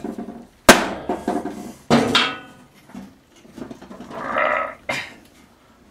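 A rubber mallet strikes a blade spindle on a steel mower deck twice, about a second apart, the second blow leaving a short metallic ring: the jack shaft being knocked out of the spindle bearing.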